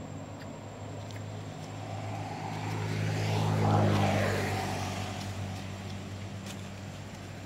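A motor vehicle passing by: its engine hum swells to its loudest about four seconds in, drops in pitch as it goes past, then fades.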